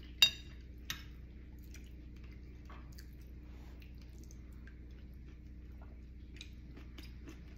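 A metal spoon clinks sharply against a ceramic soup plate about a quarter second in, ringing briefly, with a lighter tap just after. Then come soft chewing and scattered small spoon clicks.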